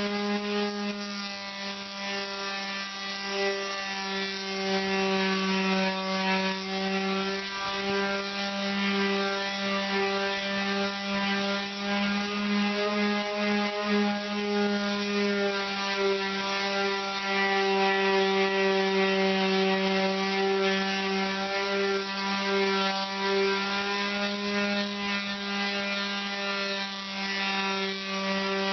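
Power sander running steadily as it sands lead-free body solder smooth on a welded patch-panel seam. It gives a constant hum whose pitch wavers slightly as the pad is worked over the metal.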